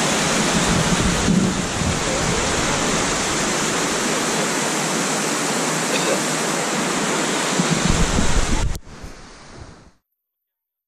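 Steady rush of a stream flowing over a rock shelf at the top of a waterfall. The sound cuts off sharply near the end, then fades to silence.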